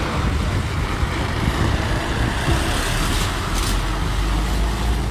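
Container truck, a tractor unit towing a semi-trailer, driving past close by: a steady low engine note under tyre and road noise.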